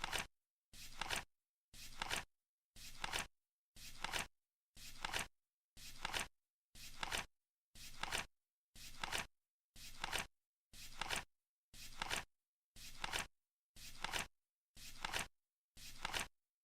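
Flip clock counting down, a card flipping once a second: each flip is a half-second swish that builds and ends in a click.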